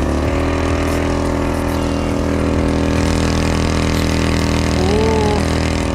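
Motorized bicycle's small petrol engine running steadily. Its pitch rises a little at the start, then holds even.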